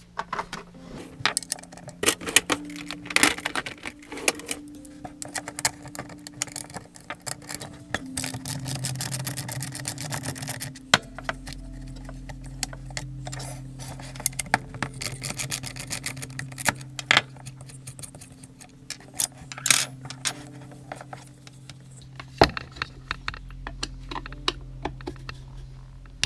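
Hand tools working the bolts of a small metal floodlight housing: scattered metallic clicks, clinks and knocks, with a ratchet clicking rapidly for a few seconds about eight seconds in.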